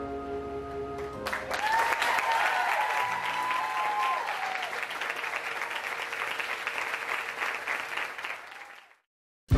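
A backing track ends on a held chord, then the audience claps in steady applause, with a short rising-and-falling cheer over it at first. The applause fades out near the end.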